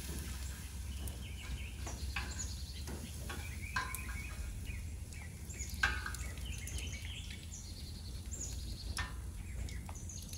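A few sharp clicks from metal tongs working in the steel cooking chamber of a homemade propane-bottle wood stove, the strongest about six seconds in. Birds chirp steadily in the background.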